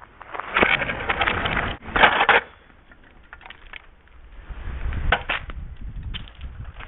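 Kick scooter clattering on pavement: a series of sharp knocks and scrapes over the first couple of seconds, the loudest near the middle, then a low rolling rumble of the wheels with a few clicks.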